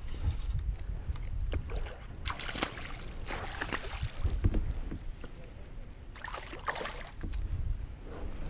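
Wind rumbling on the microphone over water lapping against a kayak, with a few short, louder rushes of noise about two, three and a half, and six and a half seconds in.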